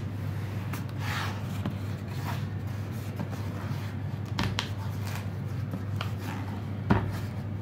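A cardboard firework cake box being handled: picked up and turned in the hands, with scraping and rubbing and a sharp knock near the end, over a steady low hum.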